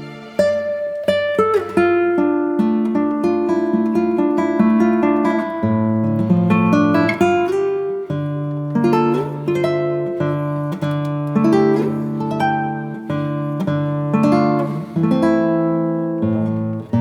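Background music: an acoustic guitar playing a fingerpicked melody, each plucked note ringing and fading.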